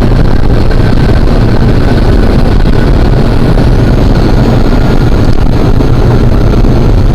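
Loud, steady engine rumble, heaviest in the low end, with faint steady whining tones above it.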